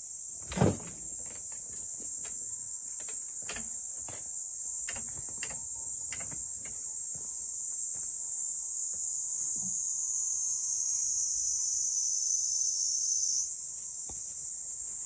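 Steady high-pitched buzzing of a summer insect chorus. A single knock comes about half a second in, followed over the next few seconds by scattered light clicks and crunches of footsteps on gravel.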